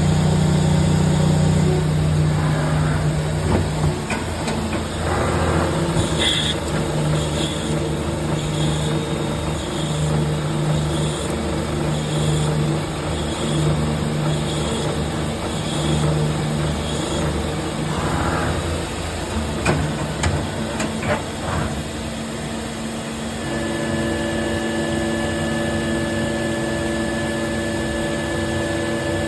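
CNC lathe running during thread cutting with a VBMT insert: a steady machine hum with high pulses about once a second for roughly ten seconds, and the hum's pitch changing about two-thirds of the way through.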